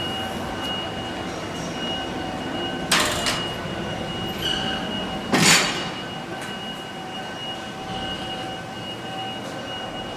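Steady mechanical running noise with a constant high whine. It is broken by two short, sharp hisses about two and a half seconds apart.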